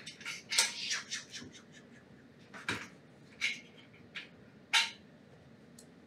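A run of short scrapes and taps: a quick cluster in the first second and a half, then four single ones spread through the rest.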